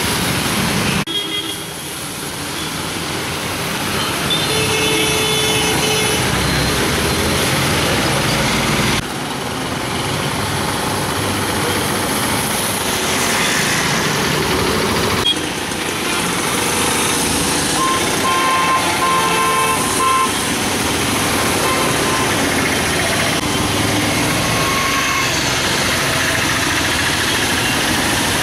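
Rain and road traffic on a wet street: a steady hiss of rain and tyres, with vehicle horns honking now and then, most plainly about five seconds in and again for a couple of seconds around eighteen to twenty seconds in.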